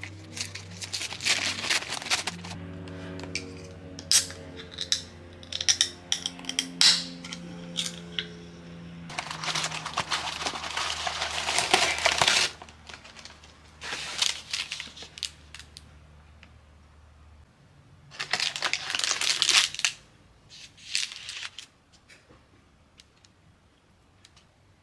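Paper cookie bag crinkling and rustling in repeated bursts as it is opened and the cookies are taken out, over soft background music of low held notes that stops about two-thirds of the way through.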